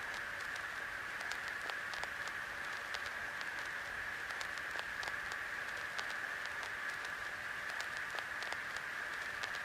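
Steady static hiss centred in a narrow high-middle band, with scattered irregular crackles.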